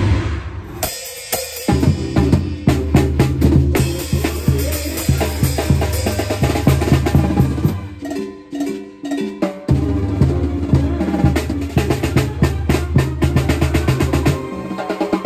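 Banda tambora, a large drum with a mounted cymbal, struck rapidly with a mallet close up in a driving rhythm. The band's low bass line and horns play behind it. The low bass drops out for about two seconds around eight seconds in.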